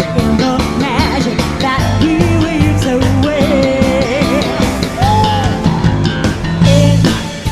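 Jazz-fusion band playing, with a female singer's line and a prominent electric bass. The bass is a cover bassist's part laid over a live band recording with its original bass removed.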